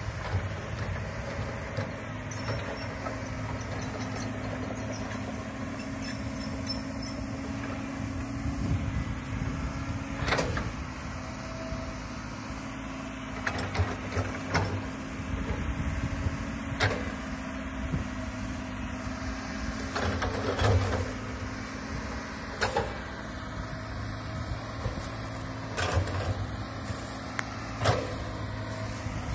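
Komatsu hydraulic excavator's diesel engine running steadily under digging load, with sharp knocks every few seconds as the machine works.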